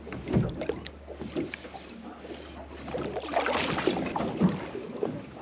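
A boat's engine idling with a low steady hum, with scattered clicks and splashing over it and a noisier stretch about three seconds in.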